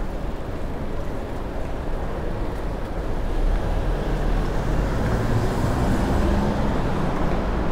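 Steady city street noise with road traffic, and a motor vehicle's engine passing by about four to six seconds in.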